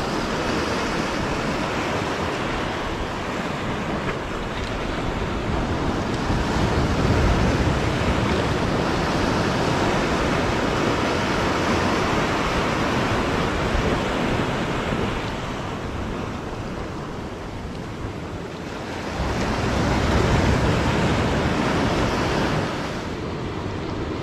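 Ocean surf breaking and washing over rocks just below, swelling louder about a quarter of the way in and again near the end.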